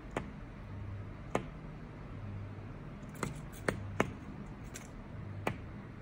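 A small yellow songbird tapping its bill against window glass: about seven sharp, irregular taps, several in quick succession around the middle, over a low steady hum.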